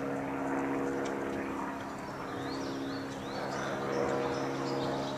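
A steady engine drone holding one pitch, with a few short, high, rising bird chirps about halfway through.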